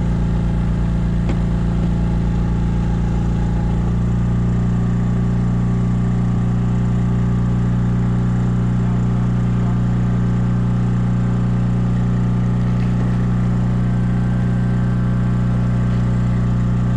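Small generator running steadily, a loud engine drone that powers the boat's LED flood lights; its note shifts slightly about four seconds in.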